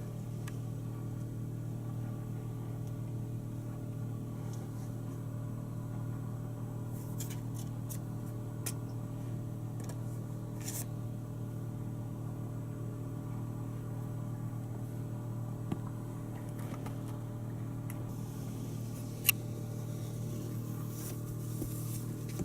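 A steady low mechanical hum, like a fan or household appliance running, with a few scattered light clicks and taps and one sharper click late on.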